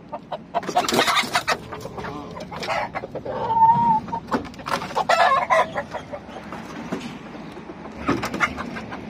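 Domestic chickens clucking in irregular bursts of loud calls.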